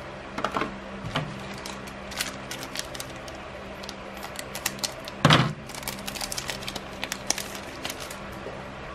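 Scissors snipping open a foil booster-pack wrapper, with crinkling and many small clicks of the pack and cards being handled; one louder thump about five seconds in.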